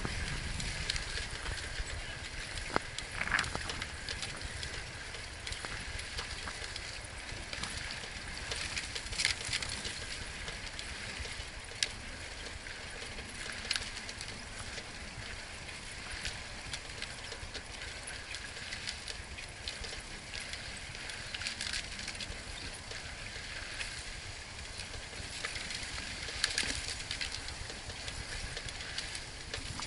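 Wind buffeting the microphone, with the rolling rumble and scattered small rattles of a bicycle riding along a paved path.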